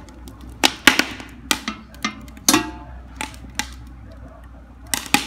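A wood fire crackling inside a stove made from steel car wheel rims, with sharp irregular pops. About two and a half seconds in, the steel firebox door clangs shut with a short metallic ring.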